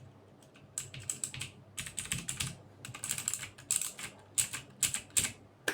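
Keys being pressed on a Torima TK05 mechanical keyboard with blue switches: sharp clicky keystrokes, some single and some in quick runs of several.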